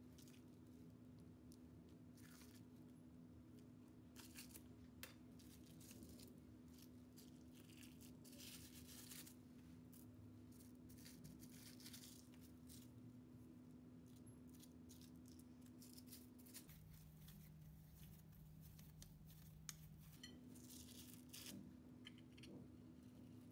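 Near silence under a steady low hum, broken by faint scattered rustles and soft clicks from handling tart dough: a metal ring cutter pressed through the dough and scraps peeled off plastic wrap.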